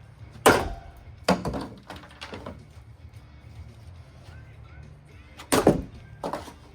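A rusty ceiling fan being hit by a thrown plastic yard chair: a run of sharp clattering whacks, three in the first couple of seconds and two more near the end, each with a brief ring, over a steady low hum.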